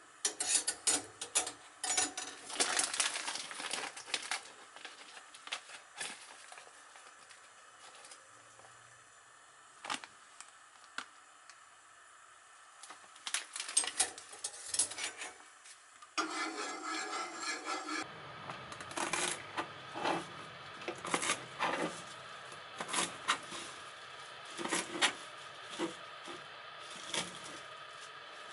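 Small clinks and clatter of kitchen utensils in the first part. In the second half, a kitchen knife cuts Japanese parsley (mitsuba) on a plastic cutting board: single strikes about once a second.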